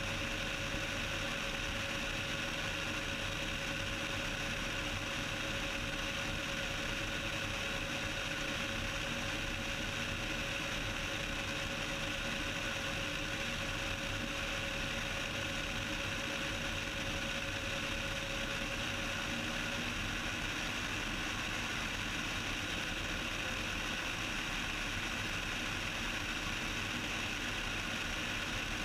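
Steady drone of a Cessna 172's piston engine and propeller in flight, with a faint even tone that fades out about twenty seconds in.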